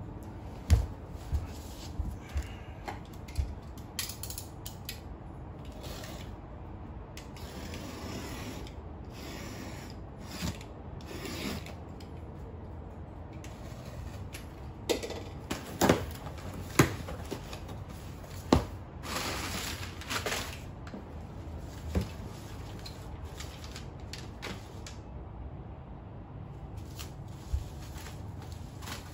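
Cardboard shipping box being opened and unpacked by hand: scattered knocks and taps on the cardboard, with several stretches of rustling as crumpled packing paper and a plastic-wrapped item are pulled out.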